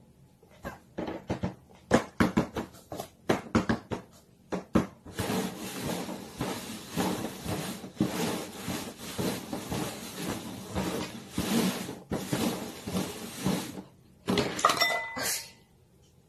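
Paper cups being set down and shuffled on a cardboard box top: a string of sharp taps and clicks, then several seconds of rapid sliding and scraping as the cups are moved around. A short clattering burst comes near the end.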